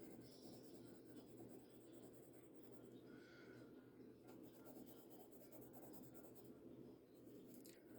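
Faint scratching of a 0.7 mm mechanical pencil's 2B graphite lead on toothy paper, laid down in light shading strokes.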